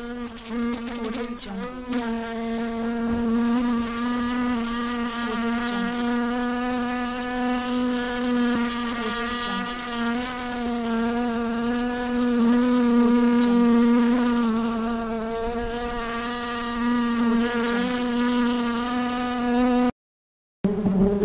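A bee flying: a steady, pitched wing buzz whose pitch wavers slightly and whose loudness swells and eases as it moves. It cuts off abruptly near the end, and after a short silence another buzz begins.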